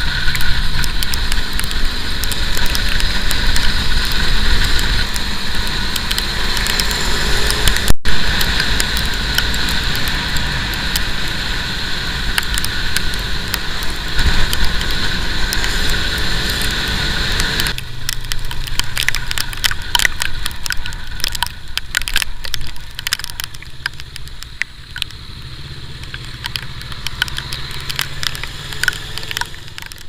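Motorcycle engine running with road and wind noise while riding. About two-thirds of the way through, the sound changes abruptly to a quieter hum with many scattered crackles and clicks.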